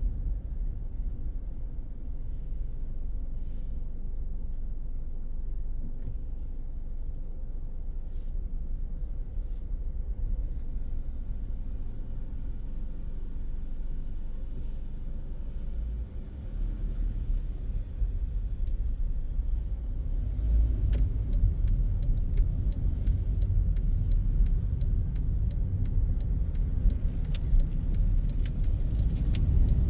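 Car driving through city streets, heard from inside the cabin: a steady low rumble of road and engine noise that grows louder in the second half, with scattered light clicks from about two-thirds of the way in.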